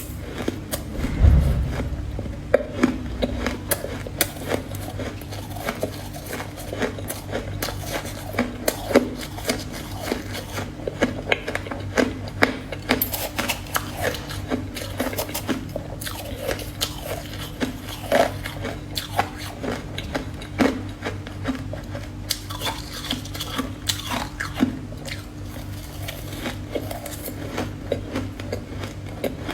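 Close-miked biting and chewing of powdery frozen ice: a dense run of sharp crunches throughout, over a steady low hum. A heavy low thud comes about a second in.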